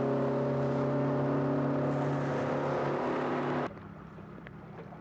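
Outboard boat motor running steadily at speed, an even engine hum. It cuts off abruptly about three and a half seconds in, leaving much quieter ambience with a few faint knocks.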